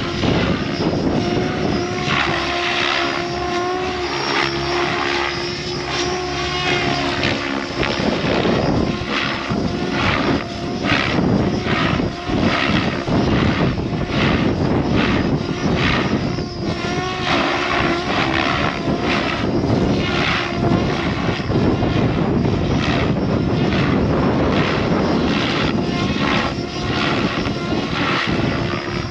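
Electric RC helicopter flying hard aerobatics: the motor and rotor whine changes pitch, and the blades chop and whoosh in repeated pulses through the manoeuvres. Wind buffets the microphone.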